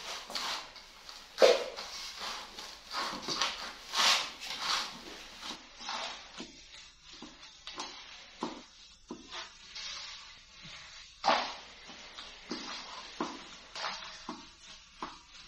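Cooking utensils knocking, scraping and clinking against pots in irregular short strokes, busier in the first few seconds.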